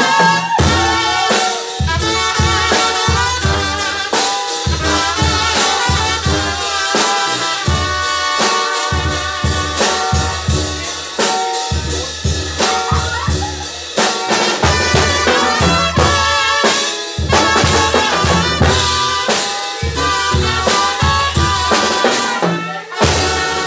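Loud dance music with brass and a drum kit over a steady beat.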